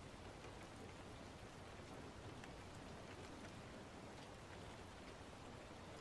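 Near silence: a faint, steady hiss with a few scattered light ticks.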